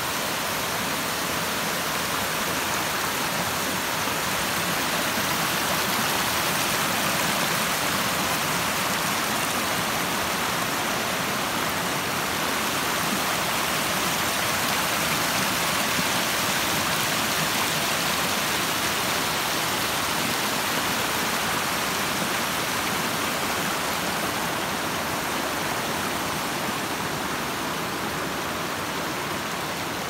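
Steady rushing of a rocky mountain creek cascading over stones, an even wash of water noise with no breaks.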